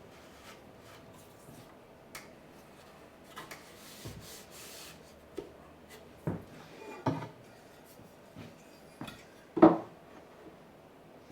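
Cedar boards and clamps being handled during glue-up: scattered knocks and clicks of wood and metal with a short rub, the loudest knock about nine and a half seconds in.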